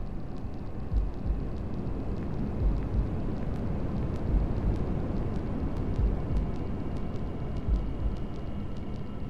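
Steady hair-dryer white noise with a heartbeat sound mixed in: a low double thump about every one and a half to two seconds.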